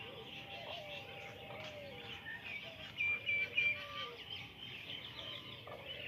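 Many caged birds in an aviary chirping and twittering together without a break. About three seconds in, three short, loud whistled notes stand out from the chorus.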